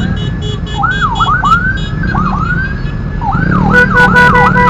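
Ambulance siren sounding in quick up-and-down pitch sweeps, which come faster about three seconds in, when a steady pulsing tone joins them. A vehicle engine rumbles underneath.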